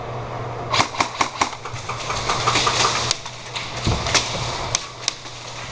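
Airsoft gunfire: a quick string of sharp cracks about a second in, then a few more near the end, over a steady low hum.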